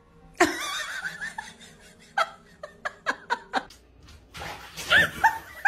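A person laughing: a loud burst about half a second in, then a run of short ha-ha pulses, about three a second. A second round of laughing bursts comes near the end.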